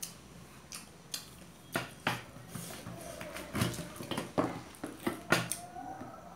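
Forks clinking and scraping against metal plates as two people eat fried momos: about nine sharp clicks at irregular intervals.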